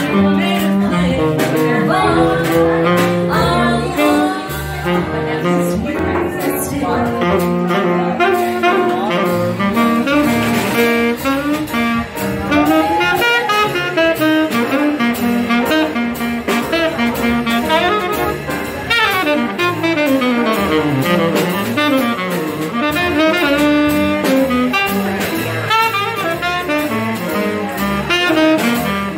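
Live jazz combo playing: a saxophone carries the melody over piano, upright double bass and drums with cymbals.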